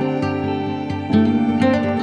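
Instrumental background music, with held notes that change in steps and a louder set of notes coming in about a second in.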